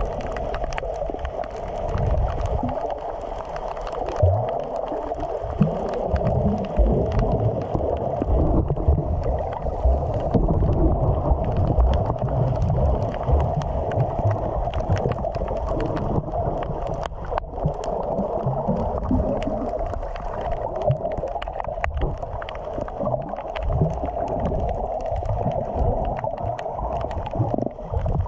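Underwater sound picked up by a submerged camera: a steady muffled rush of water with irregular low thumps and gurgles from a snorkeler swimming.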